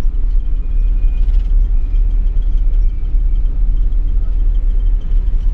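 Steady low rumble inside a moving coach bus: engine and road noise filling the cabin, with a faint high whine over it.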